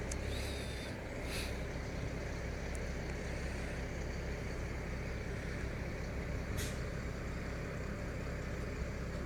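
Garbage truck's engine running steadily with a low rumble, with two short hisses of air, about a second and a half in and again near seven seconds.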